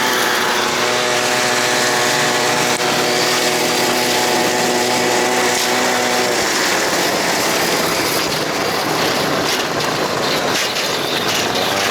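Buran snowmobile engine running at a steady speed, with an even engine tone that fades into rough rushing noise about six seconds in.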